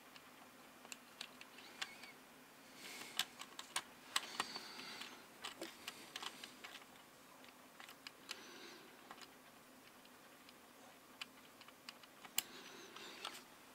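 Faint, scattered small clicks and taps of metal tweezers and a lube brush against a mechanical keyboard's plastic stabilizer and switch housing, with a few short spells of rustling.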